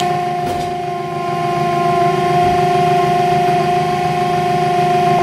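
Electric motor of a bakery egg-breaking machine running at steady speed: a constant, even hum with a steady whine, no change in pitch.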